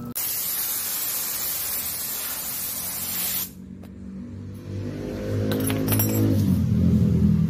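A spray gun hissing steadily for about three seconds, then cutting off suddenly. Then a low motor hum builds and grows louder, with a few light metallic clinks.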